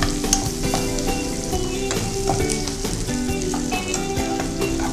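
Sliced onions, green chillies and curry leaves sizzling in hot oil in a nonstick kadai, stirred with a steel ladle that clicks and scrapes against the pan. Soft background music holds notes underneath.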